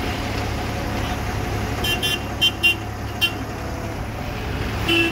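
Vehicle horns giving several short toots: a quick run of about five beeps between two and three and a half seconds in, and another near the end. Under them runs the steady low rumble of engines in slow, crawling traffic.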